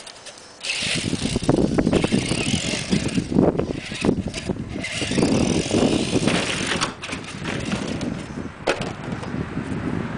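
Traxxas E-Maxx electric RC monster truck driving on grass: its motors and drivetrain running and tyres churning, surging and easing with the throttle, starting about a second in. A sharp knock comes near the end.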